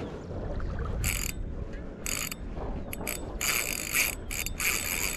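Spinning reel's drag giving line in short buzzing bursts, about six of them, some longer than others: a hooked Chinook salmon pulling line off the reel. A low rumble sits underneath.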